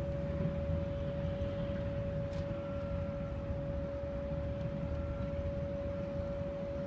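Machinery running with a steady, unchanging single-pitched whine over a low rumble.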